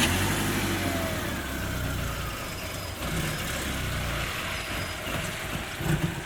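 BMW E36 318is four-cylinder engine running just after being started, held on a little throttle; the engine note steps up slightly about three seconds in.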